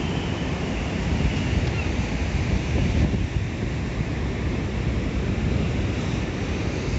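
Strong wind buffeting the microphone, a steady low rumbling noise, mixed with the hiss of rough sea surf.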